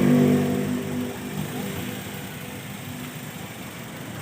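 Background music fading out over the first second or so. Under it a car engine idles steadily under electrical load, with headlights, hazards and air conditioning switched on.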